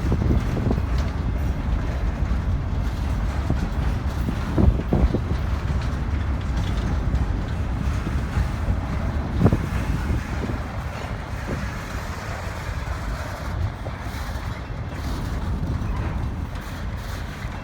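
Freight train cars rolling past on the rails: a steady low rumble with sharp metallic clanks, twice about five seconds in and once near ten seconds.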